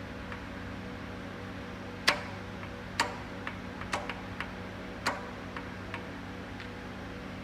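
Metal tools and engine parts knocking and clicking while the engine is worked on: about ten sharp clicks, three louder knocks about a second apart in the first half, over a steady hum.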